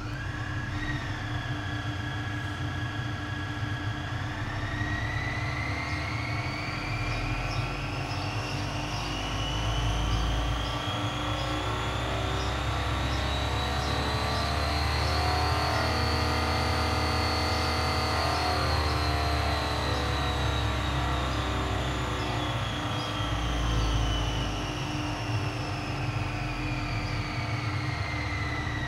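Obrist Zero Vibration Generator range-extender engine-generator running: it settles at a steady idle for about four seconds, then revs smoothly up to around 4,000 rpm and eases back down. A whine rises and falls in pitch with the engine speed over a steady low hum.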